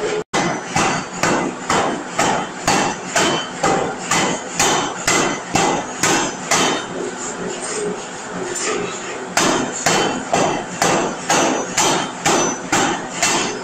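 Large power forging hammer repeatedly striking a red-hot steel billet on the anvil, about two heavy blows a second. The blows stop for about two seconds past the middle, then resume at the same pace.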